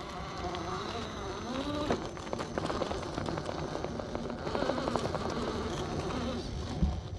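RC rock crawler's brushed 540 electric motor and geared drivetrain whining, the pitch rising and falling with the throttle as it crawls up a rock ledge. Tyres crackle and scrape on the rock and grit, with a sharp knock near the end.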